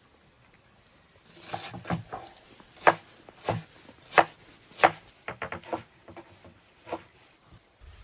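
A large knife chopping fresh greens on a wooden cutting board: a dozen or so sharp chops, irregularly spaced about half a second apart, starting about a second in. There is a quick run of lighter chops a little past the middle and a last chop near the end.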